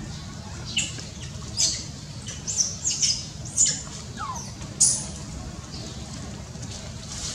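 A series of about ten short, sharp, high-pitched animal calls, squawks and squeals coming in quick clusters over a few seconds, over a steady low background rumble.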